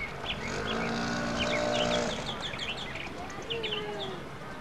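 Small birds chirping over and over in quick short notes, more densely in the second half. In the first two seconds a long steady held tone rises over them and is the loudest sound.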